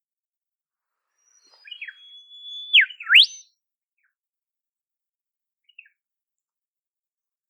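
Olive whistler singing: a couple of short falling notes, then one long level whistle that drops quickly and ends in a sharp rising sweep, about three seconds in. A faint short note follows later.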